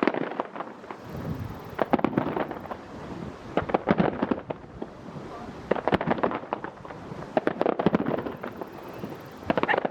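Aerial fireworks bursting in clusters of sharp bangs and crackles, a new volley roughly every two seconds.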